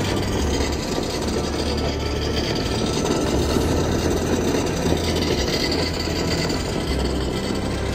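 Radio-controlled scale crawler's electric motor and gear drivetrain running under load, with snow scraping and churning as the wheel-less front axle hub digs into the snow.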